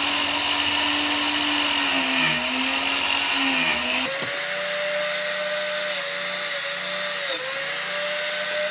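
Electric chainsaw-chain sharpener's grinding-wheel motor running steadily, its hum sagging briefly several times as the wheel is touched to the chain's teeth. About four seconds in, the hum jumps suddenly to a higher pitch and goes on with the same brief dips.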